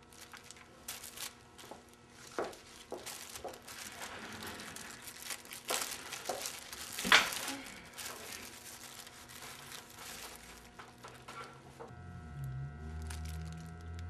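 Clear plastic sandwich bag crinkling in irregular crackles as a sandwich is unwrapped from it, the loudest crackle about seven seconds in. A low steady hum sets in near the end.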